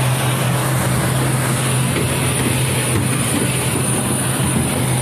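Steady jet airliner noise on the apron: a constant low hum under an even, loud hiss.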